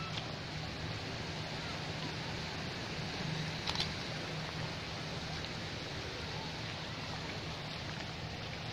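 Steady wash of gentle surf at a sandy shoreline, with faint distant voices and a couple of brief clicks about three and a half seconds in.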